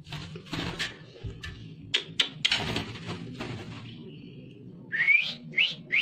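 White-rumped shama of the pied 'blorok' strain calling: short harsh rasps in the first half, then two or three quick rising whistles about five seconds in. A low steady hum runs underneath.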